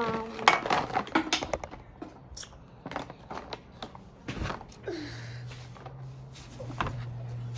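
Plastic Mr. Sketch markers clicking and clattering against each other as they are handled and pushed back into their cardboard box, in a run of quick irregular clicks that thins out about halfway through; a low steady hum sets in near the end.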